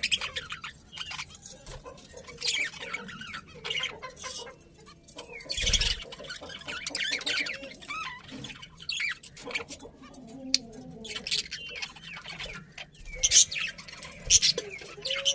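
Budgerigars chirping and warbling in quick, irregular chatter, with a few louder, harsher bursts.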